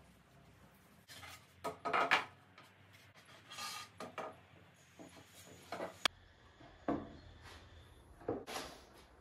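Pine boards being laid onto steel bar clamps and pushed edge to edge: irregular wooden knocks and scrapes, with one sharp click about six seconds in.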